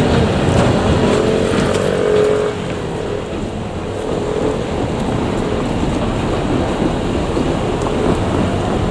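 JR Kyushu 817 series electric train running past on the rails. A steady whine is heard over the running noise for the first two and a half seconds, then only the steady rumble of the wheels on the track.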